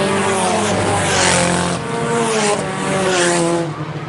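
Four-cylinder IMCA Sport Compact race cars racing on a dirt oval, their engines revving, the pitch rising and falling as they work through the turns. Three rushes of noise come about a second apart.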